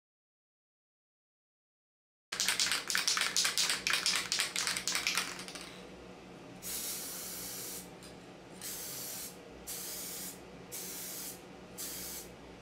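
Aerosol spray-paint can spraying in five short hisses of about half a second to a second each, with brief gaps between them. Before the spraying, after about two seconds of silence, comes some three seconds of rapid rattling, the sound of the can's mixing ball as the can is shaken.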